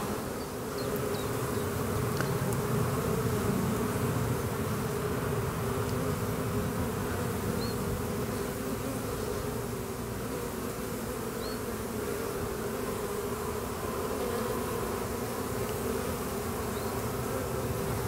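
Many honeybees buzzing steadily at the hive entrance, an even hum of wingbeats from a busy colony in full flight.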